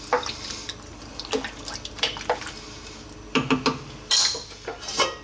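Wooden spoon stirring a vegetable soup in a metal pot: liquid sloshing, with several short knocks of the spoon against the pot and a louder clatter about four seconds in.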